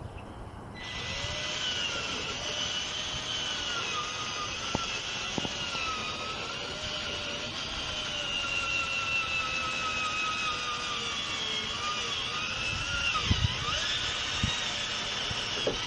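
A Ryobi cordless drill spins a Hart buffing bonnet against the outside of a gutter. The motor gives a steady whine over a rubbing hiss, starting about a second in. The whine's pitch drifts up and down as the load on the pad changes.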